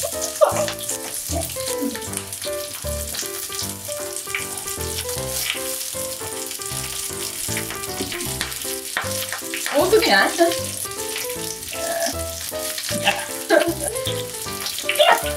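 Garlic cloves and basil leaves sizzling in olive oil in a frying pan, stirred with chopsticks, with background music underneath.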